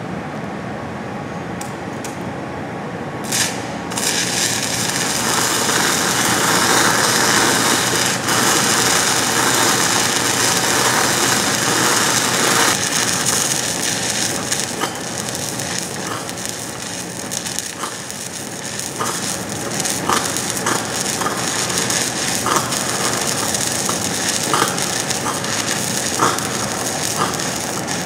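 Stick welding arc from an E6010 electrode running a pass on an open-root steel pipe joint: a loud, steady crackling hiss. It starts about four seconds in after a few sharp clicks, and sharper pops break through it in the second half.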